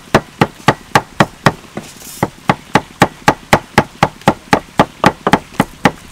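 Cleaver chopping red chillies on a thick round wooden chopping block: steady knocks about four a second, with a short pause about two seconds in.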